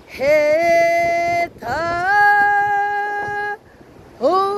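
A woman singing a slow Korean song unaccompanied, drawing out long held notes that each slide up into pitch. Two notes are held through most of the clip, and a third begins near the end.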